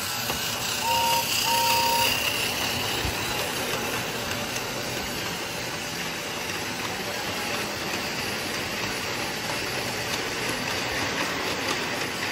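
Battery-powered Tomy Plarail toy train running steadily on plastic track, its small motor and wheels making a continuous whirring rattle. A short two-part tone sounds about a second in.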